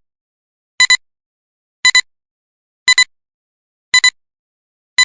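An electronic beeper sounding a short, high-pitched double beep about once a second, with silence between the pairs.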